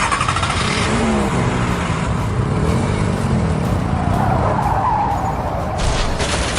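Car engine revving, its pitch rising and falling, over a noisy rush like tyres skidding.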